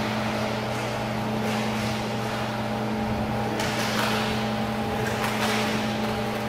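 Steady machine hum with a few fixed tones, like a large ventilation unit, over a wash of noise, with a few faint knocks from sticks and skates on the rink.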